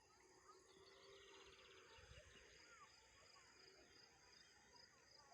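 Very faint rural ambience: a steady high insect buzz with scattered short bird chirps and a brief rapid trill about a second and a half in.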